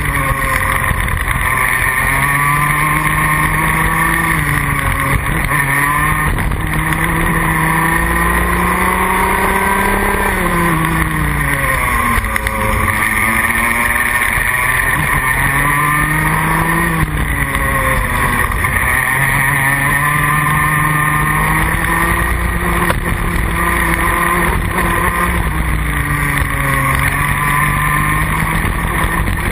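Junior Rotax kart's 125 cc single-cylinder two-stroke engine heard from onboard while lapping. The engine note climbs steadily, then drops and climbs again several times as the kart brakes for corners and accelerates out.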